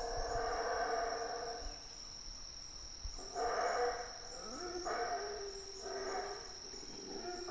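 Howler monkeys howling at dawn: one long call, then a run of shorter calls about a second apart. A steady high insect trill runs underneath.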